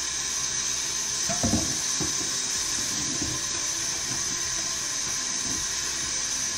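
Kitchen tap running steadily into a sink, with one brief clunk about a second and a half in.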